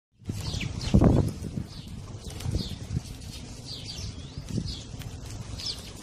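A flock of house sparrows chirping: short, downward-sliding chirps from several birds at once, repeated throughout. Low thumps and rumbles sound beneath them, the loudest about a second in.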